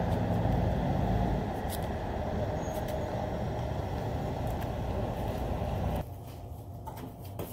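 Low, steady rumble of road traffic, with a vehicle engine running close by. It cuts off abruptly about six seconds in, leaving a much quieter indoor background with a few faint clicks.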